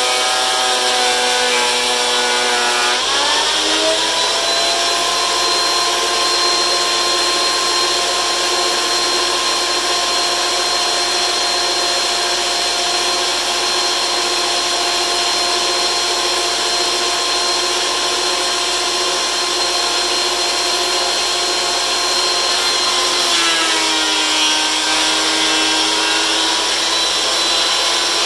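DeWalt benchtop thickness planer running with a steady pitched whine. Its pitch sits low while it cuts a board for the first few seconds, rises as the board clears and the motor runs free, then drops again about three-quarters of the way through as the next pass bites into the wood, loading the motor down.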